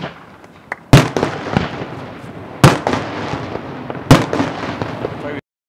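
Fireworks display: three loud shell bursts about a second and a half apart, each followed by a trail of smaller pops, with a few faint pops before the first; the sound cuts off suddenly near the end.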